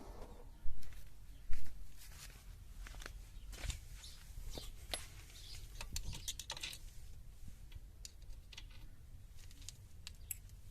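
Scattered clicks and metal knocks of hand work on the rear wheel brake parts, with two sharp, loud knocks about a second in.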